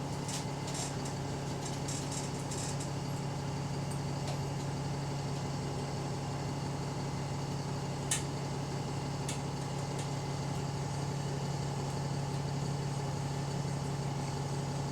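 Double-decker bus diesel engine heard from inside the bus, running steadily with a constant low hum and a steady higher whine. The bus is running in limp mode with a bad turbo. One sharp click about eight seconds in.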